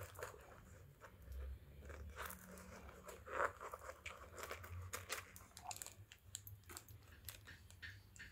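Faint scattered clicks and rustles of a stone-set imitation necklace being handled and arranged on a display bust, its metal links, stones and pearl drops clinking against each other.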